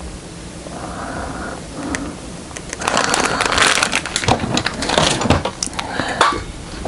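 Packaging bag from the chicken patties being crumpled and handled: crinkling rustles with many sharp crackles, loudest from about three seconds in until shortly before the end.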